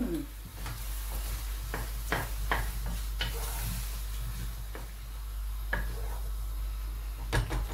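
Wooden spoon stirring and turning thick cooked cornmeal in a non-stick saucepan, with irregular scrapes and knocks against the pot over a faint hiss.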